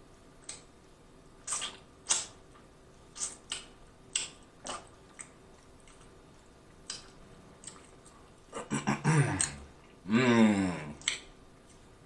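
Close-up mouth sounds of eating chicken wings: sparse wet lip smacks and sucking on a wing bone. Near the end comes a quick flurry of louder smacks, then a drawn-out hummed "mmm" of enjoyment that wavers in pitch.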